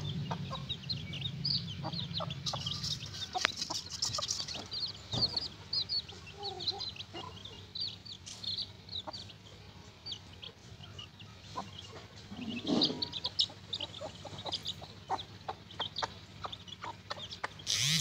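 Aseel chicks peeping continuously in short, high cheeps while they peck at grain, with scattered light taps and a few low clucks from an Aseel hen.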